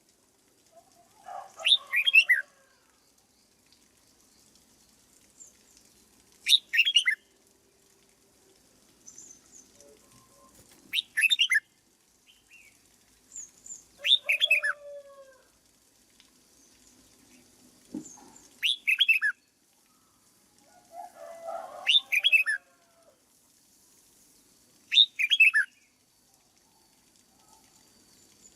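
Red-whiskered bulbul singing: seven short, bright song phrases of quick falling notes, repeated about every three to four seconds, with softer lower chattering notes alongside some of them.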